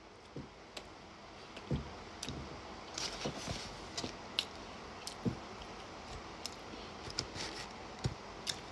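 Eating buffalo chicken wings up close: irregular soft mouth smacks and sharp little clicks of chewing and handling the food, with a few soft low thuds.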